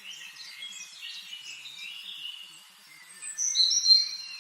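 Several songbirds chirping and singing, with one louder high, drawn-out phrase near the end.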